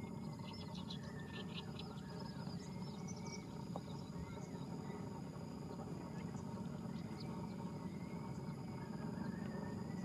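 Birds calling over a steady low background noise. There is a quick run of short high chirps in the first two seconds, then faint rising-and-falling calls, with a thin steady insect whine.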